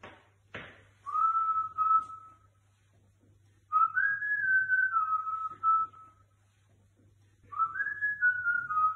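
A man whistling three short phrases through pursed lips. The last two phrases start high and step down in pitch.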